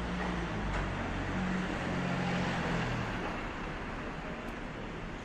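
A car driving past on the street: engine hum and tyre noise that swell about two to three seconds in and then fade, over a steady wash of city traffic.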